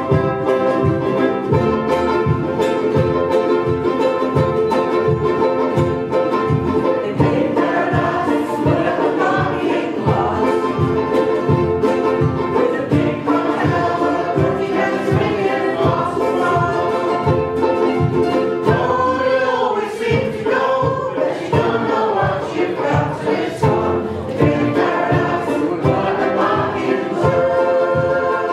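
Ukulele orchestra with an upright double bass playing live, strumming a steady beat; several voices start singing together about eight seconds in.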